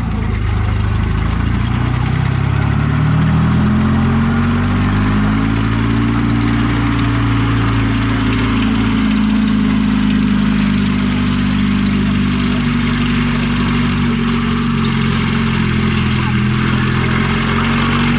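M4 Sherman tank driving across grass, its engine rising in pitch about two seconds in and then running steadily.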